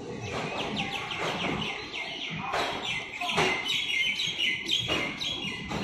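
Small birds chirping in quick, repeated falling notes, over the low rumble of a moving train, with a few sharp knocks.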